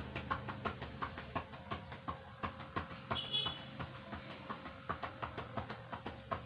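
Cupped hands clapping on a patient's back in chest percussion, an even rhythm of about three claps a second, done in a head-down postural drainage position to loosen airway secretions.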